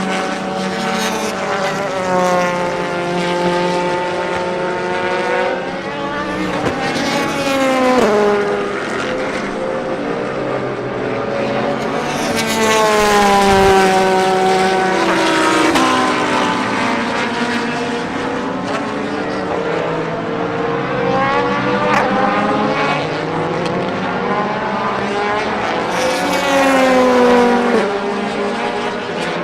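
Race car engines at speed, with the Corvette C8.R's V8 among them: several cars run past in turn, engine notes rising through the gears and dropping in pitch as each car goes by. The loudest passes come about a third of the way in and again near the end.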